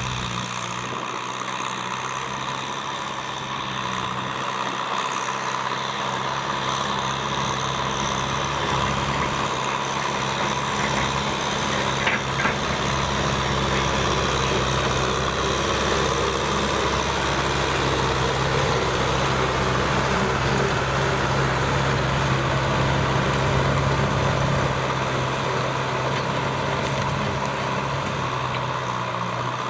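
Kubota M6040SU tractor's diesel engine running steadily while plowing a field, getting a little louder through the middle and easing off near the end.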